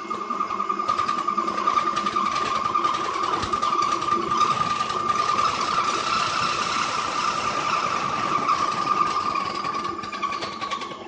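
Metal lathe cutting a pipe: the cutting tool working into the spinning pipe with a steady high-pitched ringing tone over the machine's running noise, easing off near the end.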